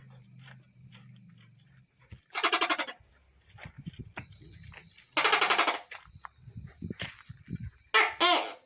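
Tokay gecko calling: loud, rapidly pulsed 'to-kek' calls, about two and a half seconds in and again five seconds in, then two shorter ones near the end. Insects trill steadily at a high pitch behind it throughout.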